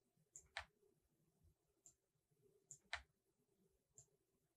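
Faint computer mouse and keyboard clicks: about half a dozen short, sharp clicks spread out, some in pairs of a light tick followed a moment later by a louder click, the louder ones under a second in and about three seconds in.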